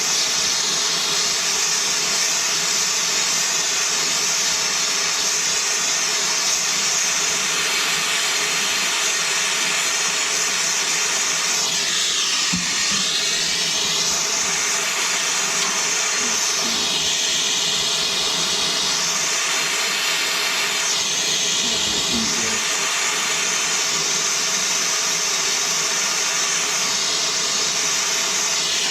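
Gas torch flame hissing steadily as it heats the steel water heater tank around a leak before soldering; the hiss shifts in tone a few times as the torch moves.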